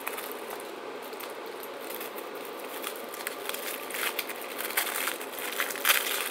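Crinkling and tearing of a firecracker pack's red paper wrapper being pulled open by hand, a dense run of small crackles that grows busier and louder after about four seconds, over a steady low hum.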